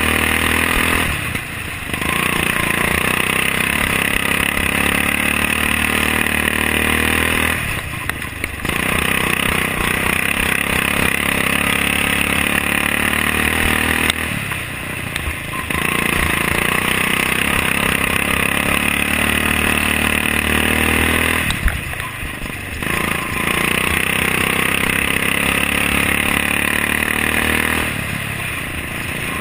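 Racing lawnmower's Briggs & Stratton Vanguard engine running hard at high revs, its pitch dropping briefly about every seven seconds as the throttle comes off for the turns, then climbing back up.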